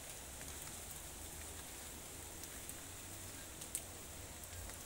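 Faint steady outdoor background: an even hiss with a low rumble and a few light ticks.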